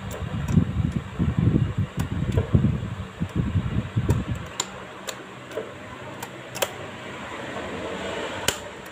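Standing electric fan running on test after the broken wire in its power lead was joined. An uneven low rumble over the first half settles into a steadier hiss, with a few sharp clicks.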